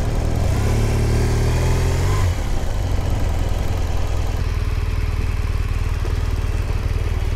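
BMW R 1200 R's boxer-twin engine heard from the saddle while riding. The revs climb for about two seconds, drop sharply, then run lower and steadier as the bike slows, with wind noise over it.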